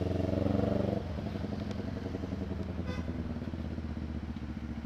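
CFMoto 400NK's 400 cc parallel-twin engine running on the move through an SC-Project slip-on muffler with no silencer (open pipe), very loud. About a second in the throttle closes and the note drops to a lower, quieter run-on.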